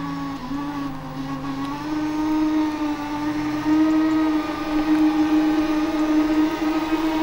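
The 48 V, 1000 W brushless drive motor of a Hyundai HYMD500B battery-powered mini dumper whining steadily as the dumper drives along, rising a little in pitch and getting louder over the first few seconds.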